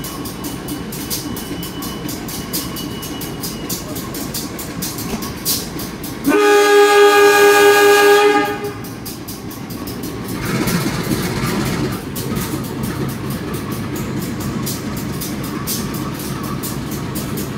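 Diesel-electric locomotive running, sounding one long multi-tone horn blast of about two seconds from about six seconds in. From about ten seconds in, the engine gets louder as the train is about to depart.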